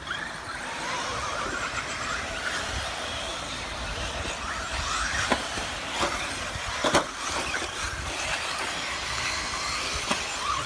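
Electric RC10T stadium truck running on dirt, its motor whine rising and falling in pitch as it speeds up and lets off. A few sharp knocks break in, the loudest about seven seconds in.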